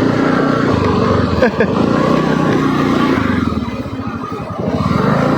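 Motorcycle engine running while riding. It eases off for about a second past the middle, then picks up again.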